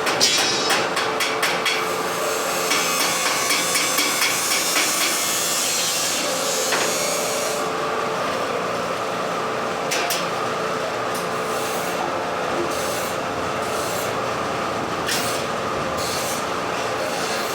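Metalworking noise from a fabrication shop: a dense, crackling hiss for the first seven seconds or so, then a steadier hum with scattered clicks and knocks.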